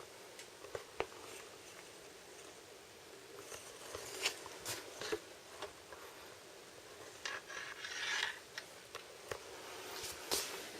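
Handling noise: scattered sharp clicks and taps, with a rough scraping rub for about a second near the middle.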